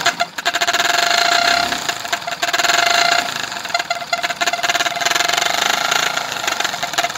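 Motorcycle engine idling with its exhaust blowing through a plastic toy trumpet fitted over the silencer outlet, giving a steady horn-like tone over the rapid exhaust pulses. The tone weakens and comes back a few times.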